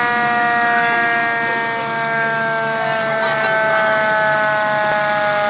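Fire truck siren sounding one long held tone that slowly falls in pitch.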